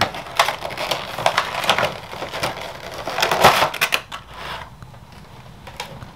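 Clear thin plastic blister-pack tray crinkling and crackling as it is pulled open and the parts are taken out, with a sharper crack about three and a half seconds in. It goes quieter near the end.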